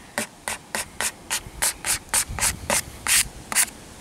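Quick, evenly repeated rubbing strokes, about three a second, smoothing a decal down onto car window glass to press out air bubbles.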